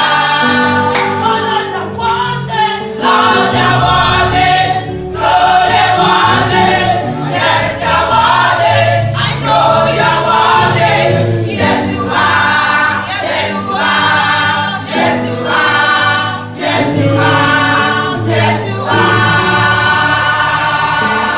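Church choir singing a gospel song, with a bass line underneath.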